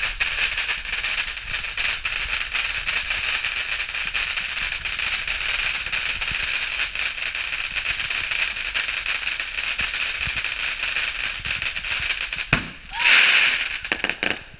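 Ground fountain firework spraying sparks: a steady loud hiss packed with rapid crackling. About twelve seconds in it briefly dips, then a louder rushing burst with a few sharp cracks follows.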